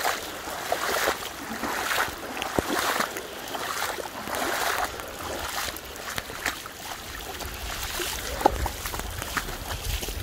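Feet splashing through ankle-deep floodwater, about one step a second, over the steady rush of the flowing water.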